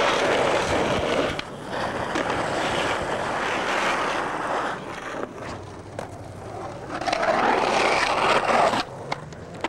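Skateboard wheels rolling on concrete, with a few sharp clacks from the board. The rolling noise changes abruptly a few times.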